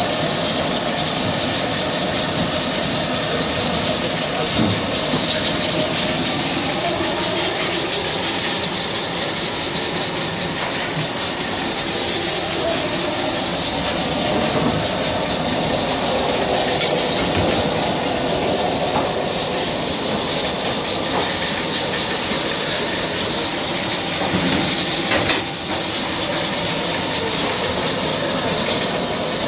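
Steady hiss and rumble of cooking on high gas flames, several large steel karahis of desi chicken boiling and sizzling hard. A brief knock near the end.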